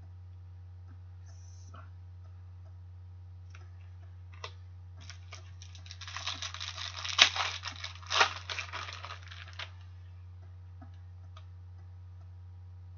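Foil trading-card pack wrapper crinkling and tearing as it is opened by hand, a burst of about three and a half seconds about halfway through, with two sharper cracks.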